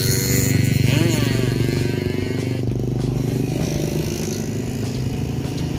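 Diesel engine of a ballast regulator track machine running steadily at idle.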